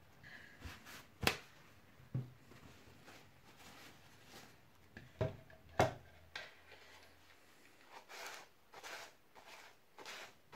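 Paper towel rubbing and rustling over a painted 3D-printed plastic helmet as it is wiped, with a few sharp knocks from handling the piece in the first half. Near the end the wiping turns into quick repeated swishes, about two a second.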